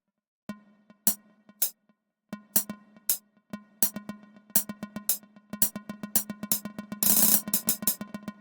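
Amapiano beat playing back: drum-machine hits over a sustained low note, with a short dense noisy burst about seven seconds in.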